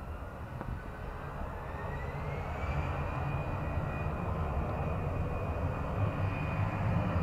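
Airbus A319 jet engines spooling up for the takeoff roll: a whine that rises in pitch over the first two or three seconds and then holds steady, over a low rumble that grows louder.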